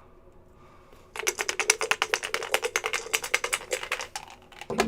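Dice rattling and clattering on a hard surface: a fast run of sharp clicks that starts about a second in and stops near the end.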